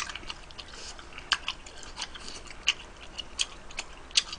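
A person chewing chewy rice cakes in sticky spicy sauce close to the microphone: irregular wet mouth clicks and smacks.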